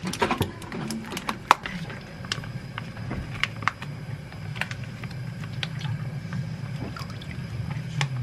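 Broth poured from a pouch into a pan of boiling water on a gas stove: a steady pouring and bubbling, after a few light handling clicks in the first two seconds.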